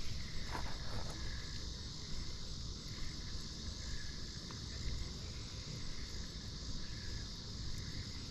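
Wind rumbling on the action camera's microphone, over a steady high drone of insects such as crickets, with a few faint ticks about half a second to a second in.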